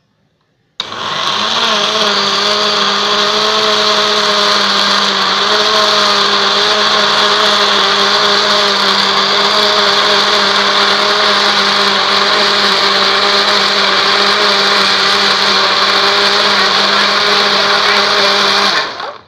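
Electric blender motor running steadily, blending cake batter of flour, eggs, milk and oil in its jar. It switches on just under a second in and stops suddenly shortly before the end.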